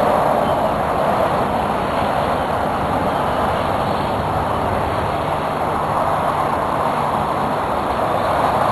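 Steady rolling rumble of wheels on a hard surface, heard from a handlebar-mounted camera during a fast ride, with wind noise on the microphone.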